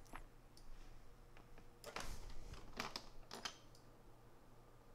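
A few faint clicks of a computer mouse, over a steady low hum.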